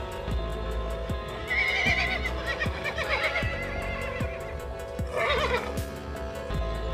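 A horse whinnies twice, a longer whinny about a second and a half in and a shorter one about five seconds in, over background music with a steady beat.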